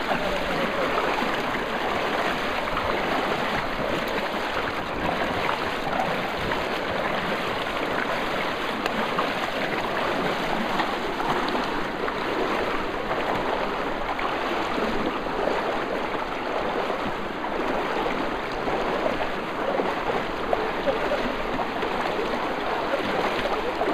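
Steady rush of river water around and against a wooden river boat's hull, dense with small splashes.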